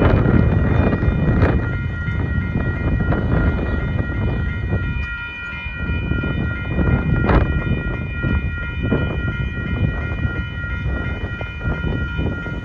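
Amtrak passenger train rolling past at close range: a continuous heavy rumble of wheels on rail with occasional clicks, and a steady high-pitched ringing tone over it that stops suddenly near the end.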